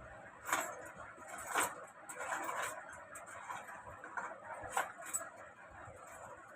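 A few light metallic clicks and clinks amid faint handling noise: small mounting hardware, a nut and screw for a sewing machine motor, being picked up and handled. The sharpest clicks come about half a second, a second and a half, and nearly five seconds in.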